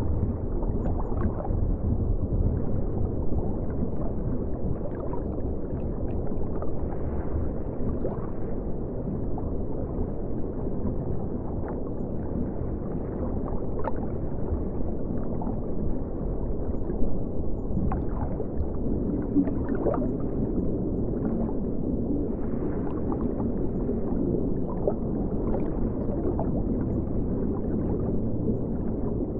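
Steady low, muffled rush of river water with scattered gurgles and small ticks, heard from a camera set in the river.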